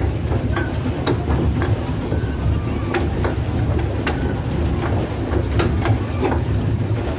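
A steady low rumble with scattered light clicks and knocks, heard aboard a moving swan-shaped boat on the water.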